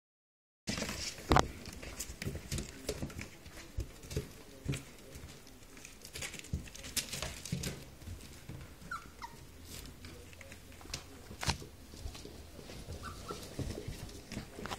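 Labrador puppies scrabbling and clambering against the side of their whelping box: irregular claw scratches and small thumps, the loudest knock about a second in. A couple of brief high puppy whimpers come through later.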